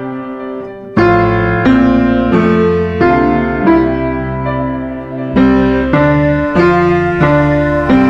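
Background piano music: a slow, evenly paced run of notes with low bass, a new note struck about every two-thirds of a second, coming in more strongly about a second in.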